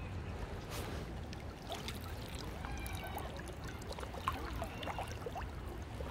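River water trickling and splashing, with many small irregular splashes over a steady low rumble.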